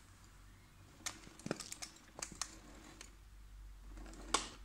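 Light plastic clicks and knocks as a Traxxas TRX-4 RC crawler's tyres and chassis climb over plastic toy bricks: a quick cluster of clicks about a second in, then one sharper knock near the end.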